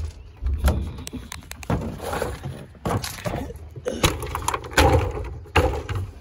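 Particle-board furniture panels being stomped and shoved in a truck bed: a series of irregular wooden thumps and cracks as the boards knock together and break.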